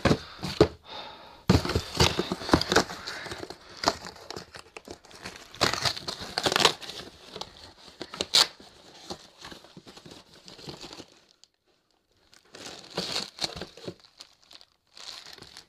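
A cardboard parcel being torn open by hand, with its packaging crinkling and rustling in irregular bursts and sharp clicks. There is a short pause about eleven seconds in before the rustling resumes.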